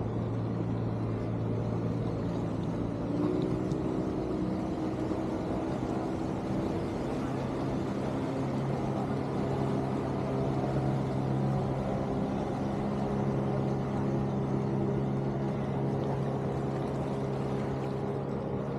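Boat engine running steadily, its pitch stepping up a little about seven seconds in.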